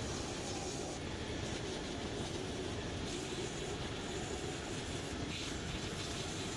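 Cobbler's finishing machine running steadily, its sanding belt sanding the edge of a Vibram rubber protective sole to rough it up so the glue adheres better.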